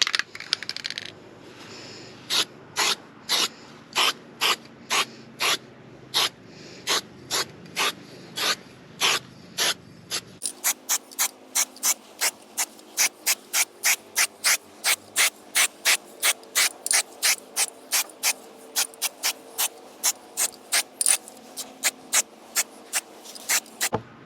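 Aerosol can of silver cold-galvanising paint sprayed in short, quick bursts, about two a second, quickening to about three a second about ten seconds in. There is a brief rattling at the start.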